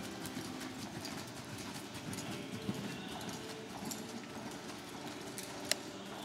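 Hoofbeats of a paint mare jogging on soft arena dirt under a rider, a steady run of muffled footfalls. One sharp click stands out about five and a half seconds in.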